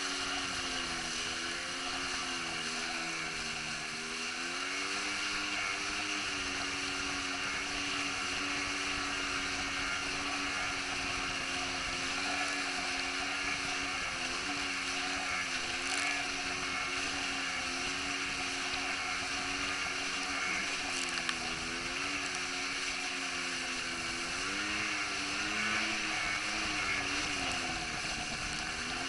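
Jet ski engine running at speed, its pitch dipping and rising several times with the throttle, most of all near the end, over a steady hiss of water spray and wind.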